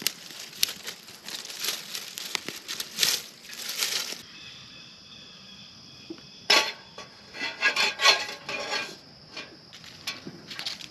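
Twigs crackling as they burn in a small folding metal twig stove, then a stainless steel pot clattering and scraping as it is handled and set on the stove, loudest in a burst of clanks between about six and nine seconds in, with twigs rustling as they are fed underneath.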